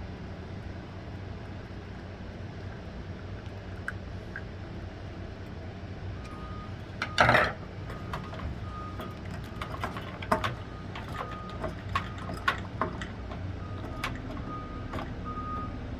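Clicks, knocks and one loud rattle of a plastic pull feeder's parts being handled and screwed together. A steady-pitched electronic beep repeats in short dashes from about six seconds in over a low steady hum.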